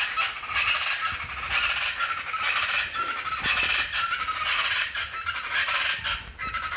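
A group of chachalacas calling loudly in chorus, with many repeated calls overlapping one another without a break.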